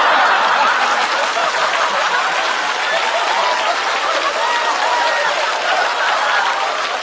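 Studio audience applauding and laughing, breaking out suddenly and holding steady and loud.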